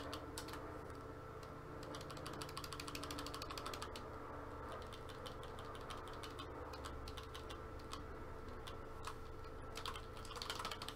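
Typing on a computer keyboard: a fast, uneven run of light key clicks, over a faint steady electrical hum.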